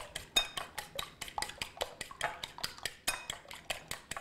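Fork beating eggs in a ceramic bowl, the tines clicking rapidly and evenly against the bowl's side, about five or six strokes a second.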